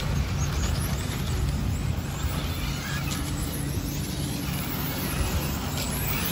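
Electric 1/10-scale RC touring cars racing around an asphalt track, with a steady low rumble beneath.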